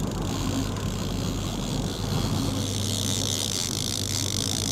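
Boat engine running steadily at trolling speed. From about two seconds in, a trolling reel's clicker buzzes as line is pulled off: the sign of a fish striking.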